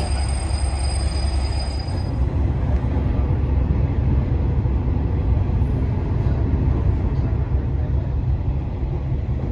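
Train running on the line: a steady low rumble of wheels on rails. A faint high whine fades out about two seconds in.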